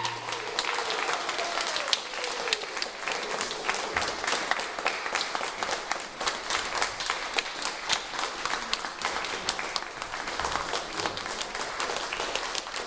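Audience applauding: a dense, steady patter of hand claps just after an opera number's final sung note ends.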